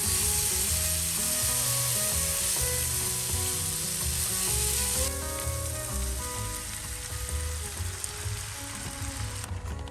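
Mushrooms frying in a hot frying pan: a steady sizzle, louder for the first half, then softer until it stops near the end, with background music underneath.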